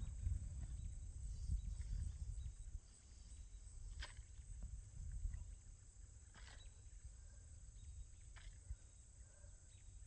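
Soft scrapes and a few faint taps as garden soil is scooped by hand into a plastic bucket, under a low rumble that drops away after about three seconds.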